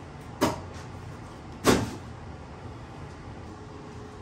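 Two knocks about a second apart, the second louder: a kitchen cupboard door being opened and shut.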